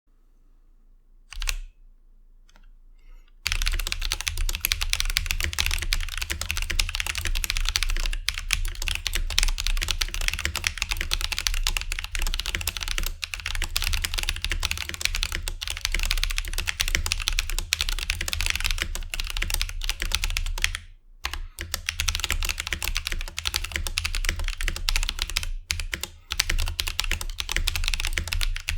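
Fast, continuous typing on a Drop CTRL mechanical keyboard fitted with unlubed Holy Panda tactile switches and GMK keycaps. A single keystroke comes first, then a few seconds of quiet before steady typing begins, with a brief pause about three quarters of the way through.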